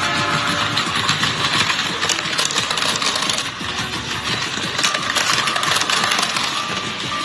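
Toy vehicles running: a steady mechanical rattle with dense clicking, like small motors and wheels on track.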